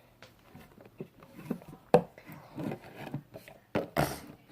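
Butter slime being squeezed and worked by hand: irregular soft squishes and small clicks, with a sharper click about two seconds in and a short rustle near the end.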